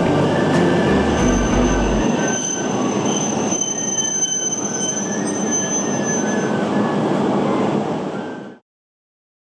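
Train running on rails, a steady rumble with thin high squealing tones from the wheels, cutting off abruptly near the end.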